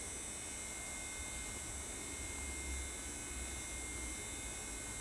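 Steady low electrical hum under a constant hiss, with faint steady high-pitched whines and no distinct event.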